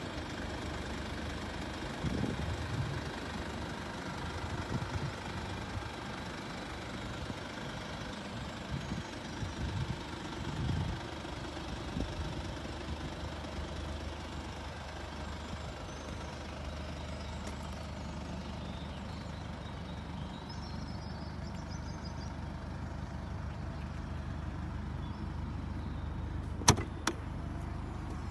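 Steady outdoor background noise with a constant low hum and a few soft low thumps in the first half. Near the end come two sharp clicks in quick succession.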